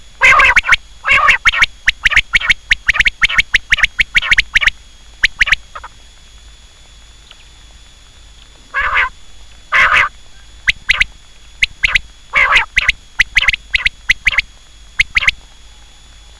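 Quail calling: rapid series of short, harsh notes in dense clusters, a long run in the first five seconds, then a pause of about three seconds, then further bursts.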